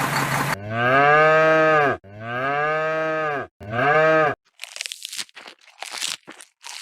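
A cow mooing three times, each call rising and then falling in pitch, the third one shorter. This is followed by a run of short crunching, crackling sounds.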